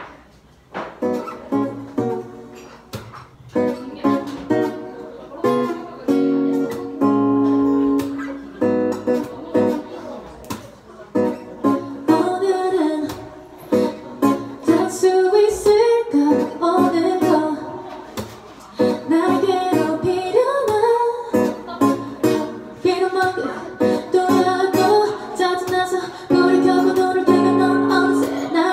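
A steel-string acoustic guitar strums a song's opening chords, and a woman's voice joins partway through, singing into a microphone over the guitar.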